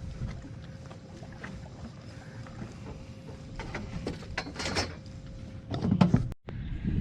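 Outdoor wind rumbling on the microphone beside open water, with a steady faint hum and a few louder noisy bursts around four and six seconds in.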